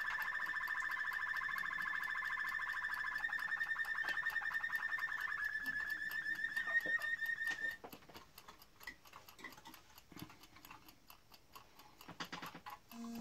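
Canary singing a long trill of fast, evenly repeated notes, which stops about eight seconds in. After it, only a few soft chirps and small clicks.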